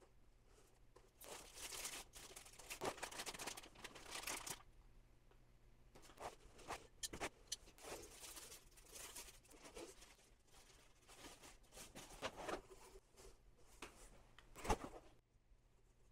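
Faint rustling and crinkling of packaging being handled while laser engraver parts are unpacked, with scattered light clicks and a sharper knock near the end.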